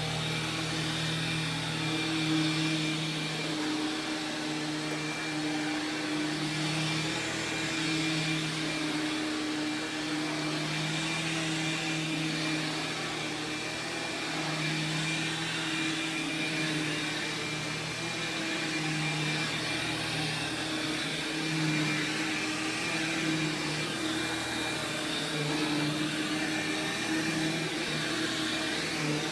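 Sharp Twin Energy EC-12TWT4 upright vacuum cleaner running steadily on its 12-amp two-stage motor, with a thin high whine over the motor's hum.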